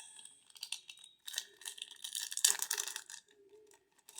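A small collectible-card packet being torn open by hand, its wrapper crinkling and ripping in irregular crackly bursts, loudest around two to three seconds in.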